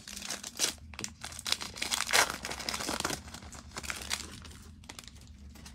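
A foil wrapper of a Mosaic football card pack being torn open and crinkled: a dense run of crackles, loudest about two seconds in and thinning out over the last couple of seconds.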